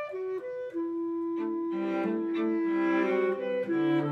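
Bowed string instruments playing classical music: a long held note comes in about a second in, and lower parts join it from around the middle.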